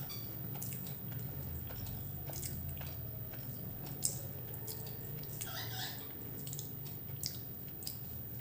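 Quiet eating sounds, with chewing and small clicks and squishes of food and plate, over a steady low hum. One sharper click comes about four seconds in.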